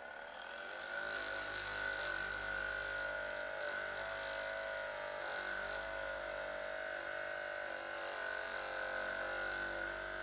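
A small electric motor humming steadily with a high whine. It builds up over the first second, then runs evenly.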